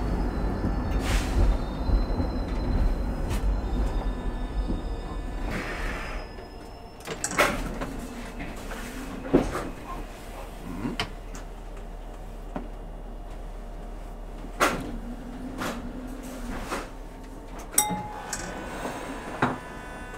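Electric tram running along the track, heard from the driver's cab: a low rumble with a faint high whine over the first several seconds, then quieter running with sharp knocks and rattles every couple of seconds. A brief tone sounds near the end.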